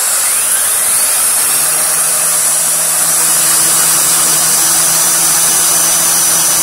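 1000-watt Tough Master wet & dry cyclonic tub vacuum running at full suction, air rushing through a VAX turbo brush whose air-driven brush roll is spinning. It is a loud, steady rush with a constant hum underneath.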